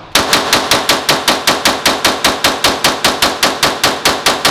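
Ported Glock 17 9mm pistol fired in a fast, steady string of about twenty shots, four to five a second, each shot sharp with a short echo.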